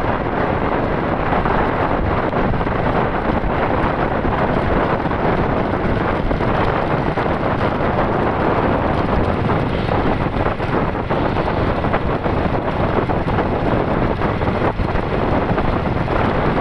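Loud, steady wind noise buffeting the microphone of a moving vehicle on a road, with the vehicle's running noise mixed in.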